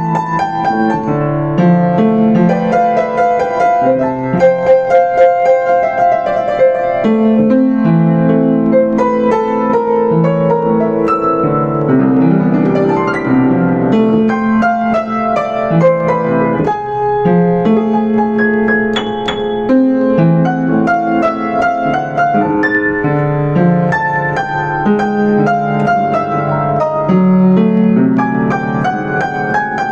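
Solo piano music played on a Yamaha U5 upright piano: a melody over sustained chords and a bass line, with no pause.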